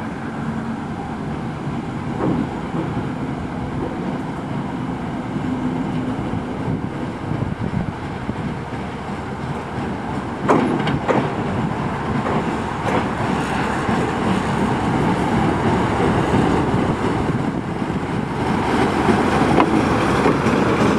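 TU2 narrow-gauge diesel locomotive rolling slowly toward and past, its diesel engine running steadily, with a few sharp clicks of wheels over rail joints about halfway through. The sound grows louder near the end as the locomotive comes alongside.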